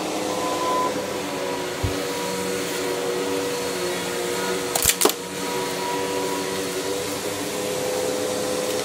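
Tornado CK14/1 commercial upright vacuum cleaner running steadily on carpet, a constant motor hum over airflow hiss. There is a low thump about two seconds in and a couple of sharp clicks about five seconds in.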